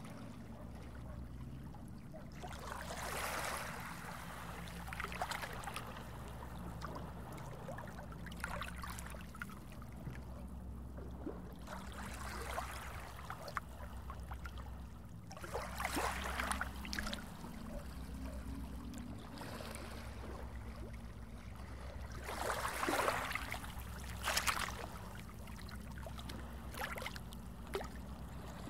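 Underwater ambience: bubbling, gurgling water that swells up every few seconds, loudest near the end, over a steady low hum.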